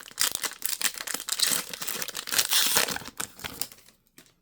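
Foil Pokémon booster pack wrapper being torn open and crinkled in the hands, dying away about four seconds in.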